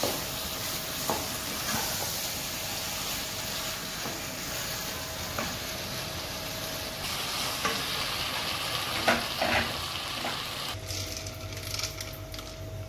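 Chicken pieces with tomato and onion sizzling in a nonstick pan while they are stirred with a wooden spatula, with occasional knocks and scrapes of the spatula against the pan. Near the end the sizzling gives way to a low steady hum.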